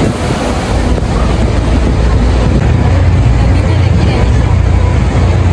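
Loud, steady roar of rushing water with a deep rumble, mixed with wind buffeting the microphone.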